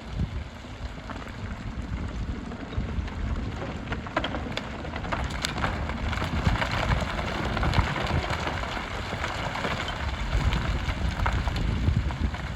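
Hyundai HX300 excavator working loose aggregate: a steady low engine rumble under a continuous clatter and hiss of gravel and stones scraping and pouring, with scattered sharp knocks of rock from about four seconds in.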